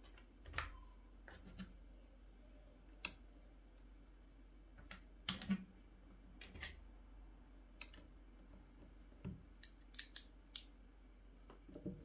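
Irregular small clicks and taps of a bit screwdriver and its metal bits being handled, with bits picked out of a plastic bit case, while the audio interface's case is being unscrewed.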